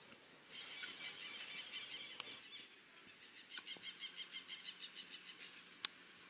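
A bird singing outdoors in two runs of rapid, evenly repeated high chirps, about seven a second, with a short pause between the runs. A single sharp click comes near the end.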